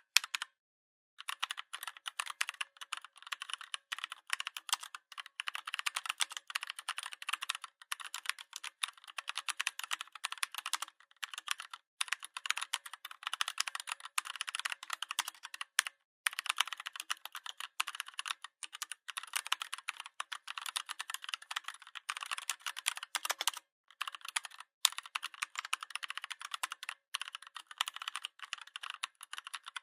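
Fast typing on a Redragon 61-key mechanical keyboard: a dense stream of key clicks, broken by a few short pauses.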